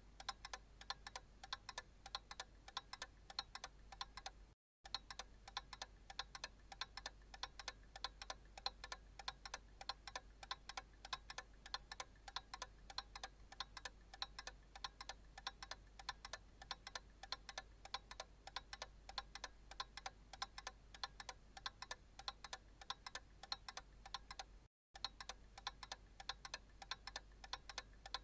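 Analog clock ticking steadily, with a sharp, even tick repeating throughout. The sound drops out to silence for a split second twice, about five seconds in and again about three seconds before the end.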